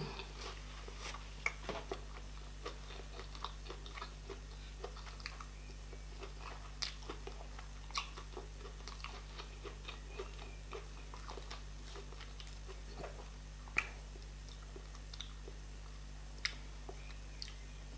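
Close-up mouth sounds of a person chewing meat with fufu and okra soup: soft, irregular wet clicks and smacks, with a few sharper clicks scattered through.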